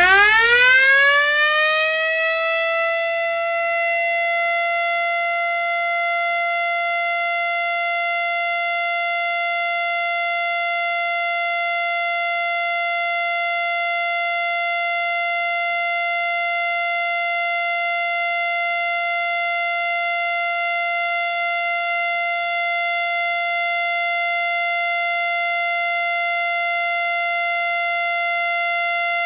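3D-printed miniature STH-10 tornado siren winding up with a rising wail over the first couple of seconds, then holding one steady tone for its alert signal.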